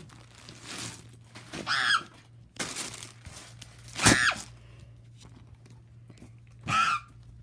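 A child's high-pitched squeals and screams, three short cries falling in pitch, the middle one about four seconds in starting with a sharp knock, amid rustling and handling noise as toys and camera are shaken about.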